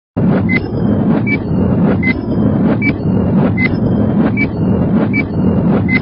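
Countdown-timer sound effect: a short high beep about every three-quarters of a second, one per number counted, over a loud steady rumbling noise bed.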